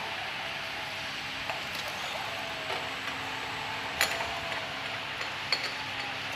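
Automatic round-bottle labeling machine running with a steady hum and whir, while empty glass jars on its conveyor clink now and then, four sharp clinks, the loudest about four seconds in.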